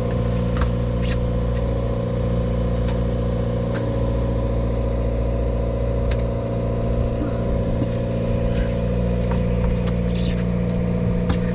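Sportfishing boat's engine running steadily, a constant droning hum, with scattered short clicks and knocks.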